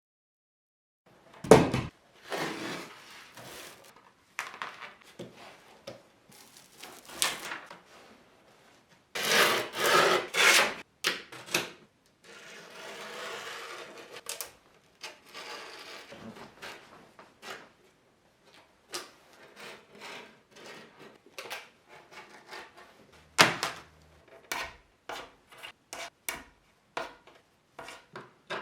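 Irregular knocking, scraping and rubbing, with a sharp knock about a second and a half in and another near the end.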